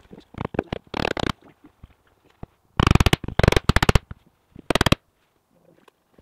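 Cordless impact driver hammering screws into the wood panels: a rapid clatter lasting about a second near the middle, then a shorter burst, after a few scattered knocks of the wood panels being handled.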